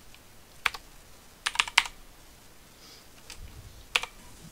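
Computer keyboard typing: scattered keystrokes, with a quick run of three or four about one and a half seconds in and a couple more near the end.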